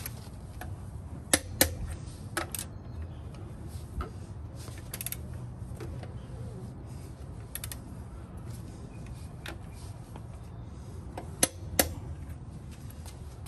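Click-type torque wrench tightening wheel lug nuts: sharp metallic clicks as the wrench breaks over at its set torque, loudest as a pair about a second in and another pair near the end, with lighter socket and ratchet clicks between.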